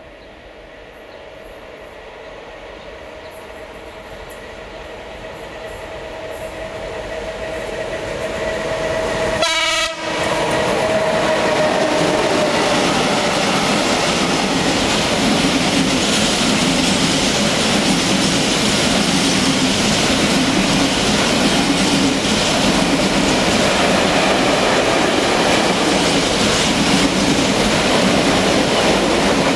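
Electric locomotive hauling a container freight train approaches, growing steadily louder, with a steady tone that dips slightly in pitch as it passes about ten seconds in. Loaded container flat wagons then roll past with a continuous rumble and clickety-clack of wheels on the rails.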